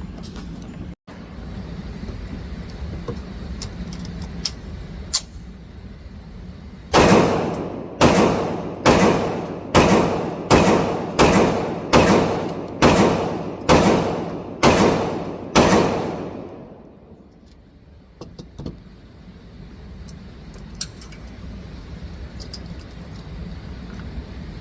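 A string of about eleven gunshots fired one after another, roughly one a second, each ringing on and dying away in the enclosed range. They begin about a quarter of the way in and stop after about nine seconds, over a steady low background noise with a few faint clicks afterwards.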